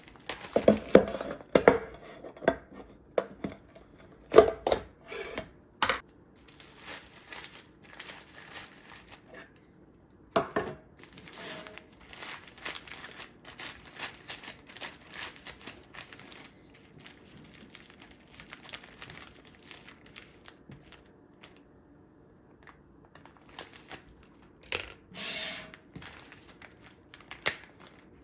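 Kitchen handling sounds: a quick run of clicks and knocks for the first few seconds, then on-and-off rustling with small clicks, and a louder rustle lasting about a second near the end.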